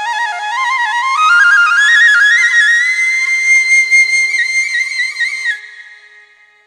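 Flute playing a Nepalese folk melody: an ornamented phrase climbing step by step to a long held high note that fades away near the end, over a faint steady low drone.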